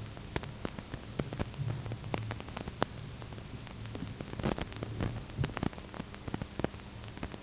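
Steady low electrical hum under hiss, with scattered crackling clicks that come thicker for a while after about four seconds: the background noise of an old, worn soundtrack.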